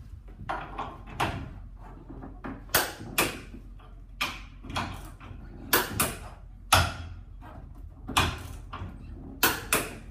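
Irregular sharp clicks and metallic knocks, about fifteen of them, from a click-type torque wrench being set and pulled on a bolt clamped in a bench vice.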